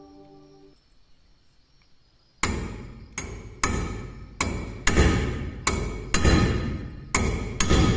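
Hammer blows on a steel punch driving at a rivet in a rusty steel dagger clamped in a vise: after a quiet pause, about nine sharp metallic strikes, roughly one every half second to second. A rotary tool's faint hum fades out at the start.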